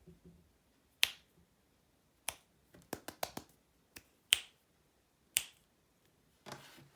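Mechanical keyboard keys with Kailh linear switches being pressed one at a time: sharp, separate clacks at an uneven pace, with a quick cluster of several presses about three seconds in and a short rattling clatter near the end.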